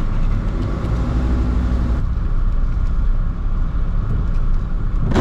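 Dodge Sprinter van driving, heard from inside the cabin: steady engine and road rumble on a wet road, with a faint engine tone for the first couple of seconds.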